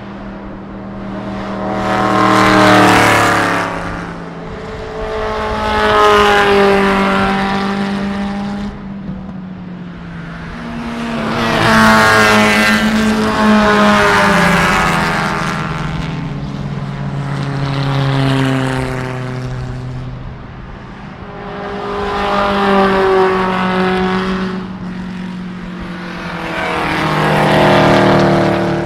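A string of racing cars passing one after another at speed, about six or seven passes, each engine note swelling and fading as it goes by, with the pitch rising and falling through gear changes and the pass.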